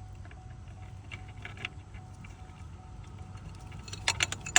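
Wrench working the nut on a truck's alternator cable terminal: faint metal clicks and clinks, then a quick run of sharper clicks near the end.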